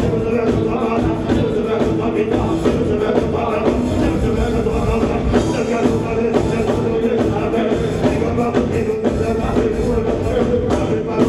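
Live reggae band playing on stage: drum kit, electric guitar and keyboards, with male vocals over the music.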